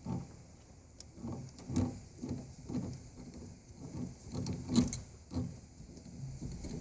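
Wrench and metal clamp on a car battery's negative terminal: a series of short clicks, scrapes and knocks as the terminal is worked loose, the loudest a little before five seconds in.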